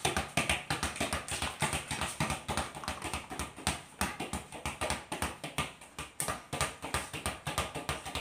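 Children's feet and a football slapping and tapping on a concrete floor: a rapid, uneven run of sharp taps, several a second.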